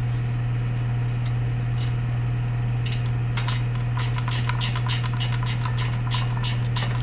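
Ratcheting wrench clicking rapidly as a header bolt is turned, starting about three seconds in, over a steady low hum.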